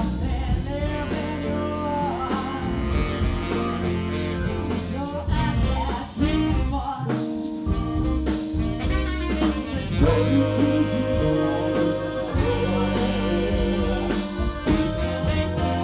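Live band playing, a woman singing lead over electric guitar, bass guitar, drums and keyboards, with a second woman on backing vocals.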